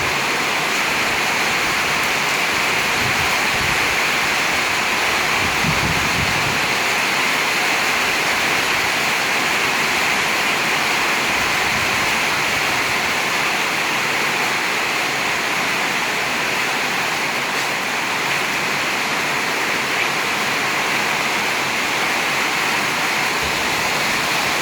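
Heavy storm rain pouring down steadily: a dense, even hiss.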